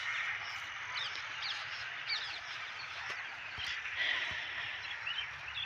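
Many birds chirping and calling together: a steady chatter of short chirps that glide up and down in pitch.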